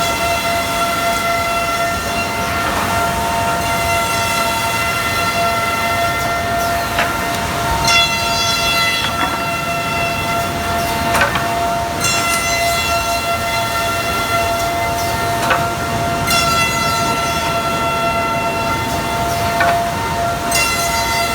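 QMB 823GH eight-spindle four-sided moulder running at high speed, with a steady high-pitched whine and many overtones. Sharp ticks and a brightening of the upper tones come about every four seconds.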